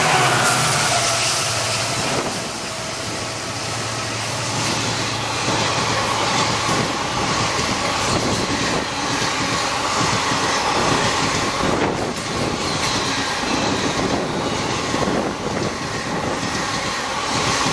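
A WDG4 diesel locomotive passing at speed, the last of its horn dropping in pitch in the first second and its diesel engine heard for the first few seconds. Its passenger coaches then rush past with a steady rumble of wheels on rail and repeated clatter over the rail joints.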